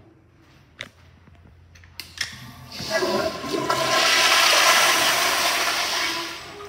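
Commercial flushometer toilet flushing. A couple of sharp clicks come first, then from about three seconds in a loud rush of water swirls through the bowl and dies down near the end.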